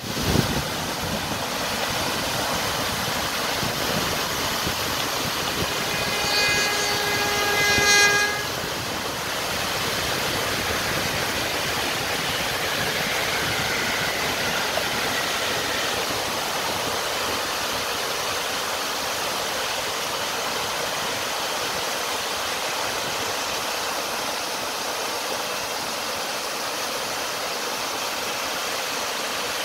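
Stormwater pumped out of the discharge pipes of a PSD.6 rainwater pumping station, pouring and churning into a concrete-lined retention basin: a steady rush of water. About six seconds in, a steady horn-like tone sounds for about two seconds over it.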